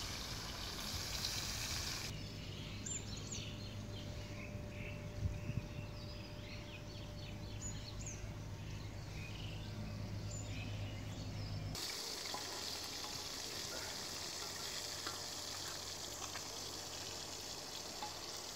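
Fish frying in hot oil in a wok over a wood fire, an even sizzle. About two seconds in this gives way to quieter open-air ambience with small birds chirping, and the sizzle returns about twelve seconds in.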